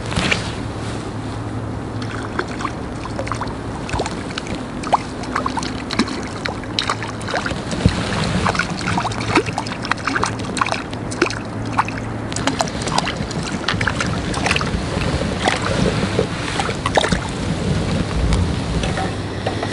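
Wind buffeting the microphone and small waves lapping at the lake edge: a steady rushing noise with a low rumble, broken by many irregular sharp ticks and splashes.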